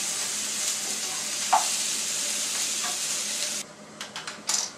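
Chopped capsicum, tomato and onion sizzling in a non-stick frying pan as it is stirred with a spatula, with a sharp clink of the spatula against the pan about a second and a half in. The sizzling drops away abruptly near the end, leaving a few clicks and knocks of the spatula.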